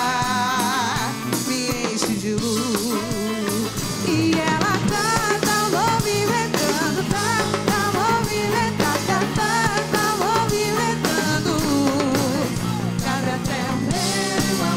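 A live band playing an upbeat song: a woman singing lead over electric guitar and a drum kit keeping a steady beat.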